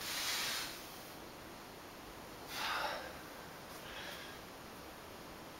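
A man's loud breaths while doing stretching exercises: one hissy breath at the start, another about two and a half seconds later that falls in pitch, and a faint one after it.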